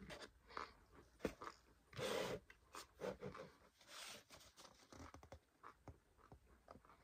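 Close mouth sounds of someone chewing a mouthful of starch powder: faint, irregular crunches and squeaky clicks, with a couple of louder crunches about two and four seconds in.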